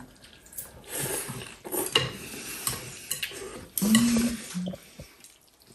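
Chopsticks and spoons clinking and scraping against ceramic soup bowls as people eat noodle soup, in scattered light clicks. A short murmured voice sounds about four seconds in.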